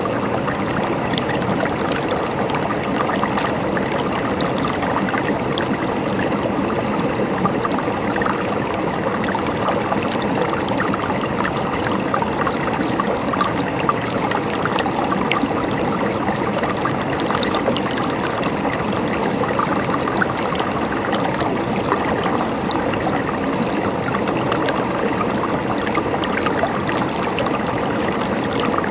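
Water flowing steadily in an unbroken rush, dotted with many small splashes throughout.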